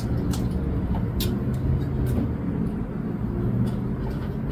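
A steady low mechanical hum, with a few light clicks of metal tongs against an aluminium steamer pot as steamed chicken is lifted out.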